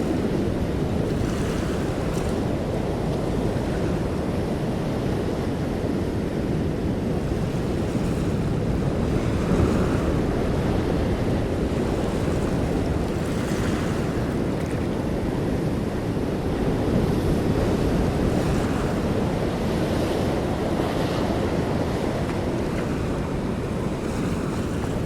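Open-sea ambience from aboard a boat: a steady low wash of waves and wind rumbling on the microphone, with a brief splash of water now and then.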